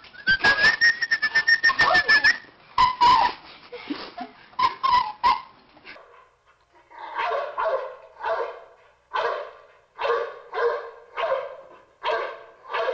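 A dog whining in a high, drawn-out tone over clicks and knocks. Then a dog barks steadily, just under two barks a second.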